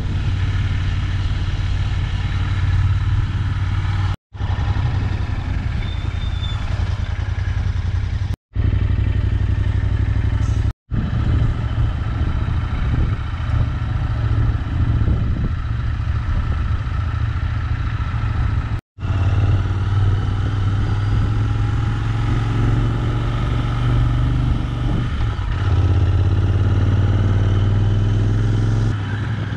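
Royal Enfield Interceptor 650's parallel-twin engine running while riding, over a steady low rumble of wind on the microphone. The sound drops out briefly four times where clips are joined.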